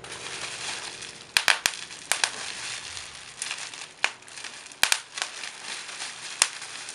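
Plastic bubble wrap crinkling as it is squeezed and twisted in the hands, with about nine sharp pops of bubbles bursting: a quick cluster about a second and a half in, then a few more scattered through.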